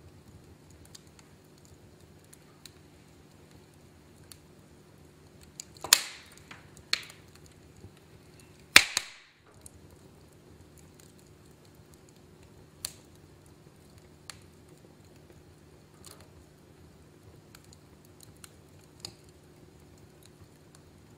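Wood fire in a fireplace crackling, with a handful of sharp pops, the loudest about six and nine seconds in.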